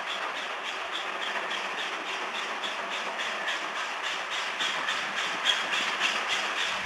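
Steam locomotive approaching under steam, its exhaust beats coming evenly at about four a second and growing slightly louder toward the end.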